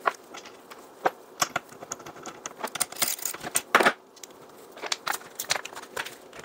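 Scattered clicks, knocks and light rattles of a small chainsaw's plastic housing and parts being handled and fitted back together, with a louder clatter just before four seconds in.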